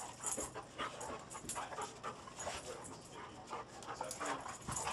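Two dogs playing tug-of-war with a rope toy, making a run of short, irregular breathy sounds as they pull and scuffle.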